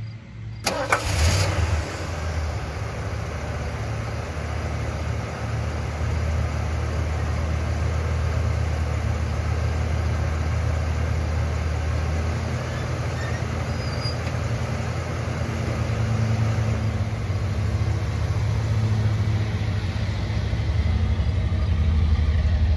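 1974 Mercury Colony Park's 460 cubic-inch four-barrel V8 starting with a sudden burst about a second in, then idling steadily and low.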